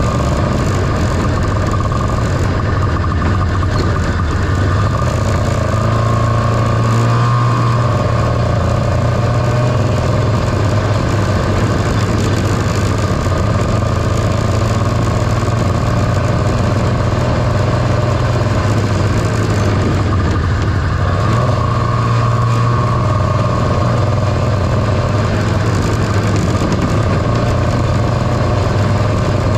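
1978 John Deere Liquifire snowmobile's two-stroke engine running steadily under way, its note shifting slightly now and then.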